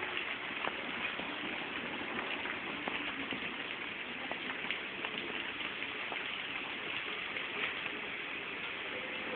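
Steady rain falling, an even hiss with scattered louder drop ticks.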